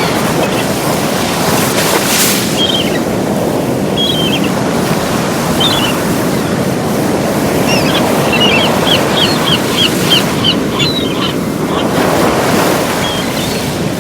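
Sea waves breaking and washing on a beach in a steady surf, swelling a couple of times. Short, high bird calls sound now and then over it, with a quick run of about a dozen calls in the middle.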